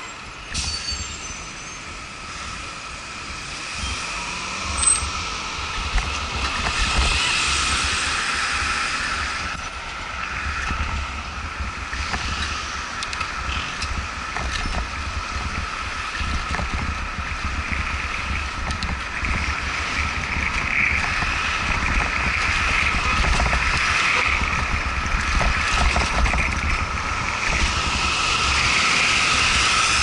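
Wind buffeting the microphone of a bicycle-mounted camera, with road noise and passing car traffic while riding down a city street. A steady high whine runs underneath, and there are a couple of short knocks about five and six seconds in.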